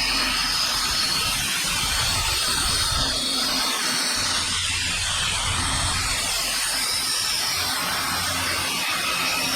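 Machine tool running steadily, an even mechanical noise with a strong hiss over a low hum.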